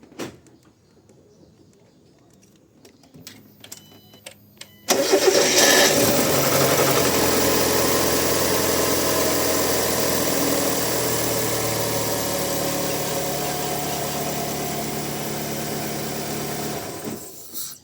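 Fiat Uno 1.4 Evo engine started after sitting for a day or two. The starter cranks about five seconds in, the engine catches and idles steadily, then is shut off near the end. The start carries a brief, subtle extra noise that lasts a couple of seconds before stopping. The owner doubts it is the lifters, and a mechanic put it down to worn main and rod bearing clearance.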